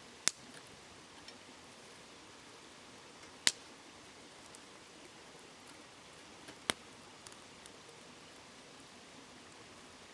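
Wood campfire crackling, with three sharp pops about three seconds apart and a few fainter ticks, over the steady hiss of a river babbling.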